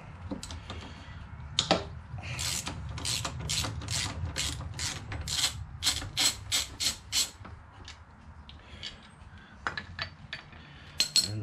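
Hand socket ratchet clicking in a steady run, about three clicks a second, as the mounting bolts of a Suzuki SV1000's rear footrest hangers are turned. A few sharp metal clinks follow near the end as the loose hanger parts are handled.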